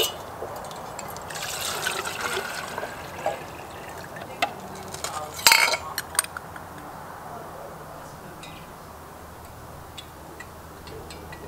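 Water poured from a plastic measuring jug into an enamel percolator pot, filling for about two seconds. About five and a half seconds in comes a sharp clink, followed by a few light knocks of metal parts being handled.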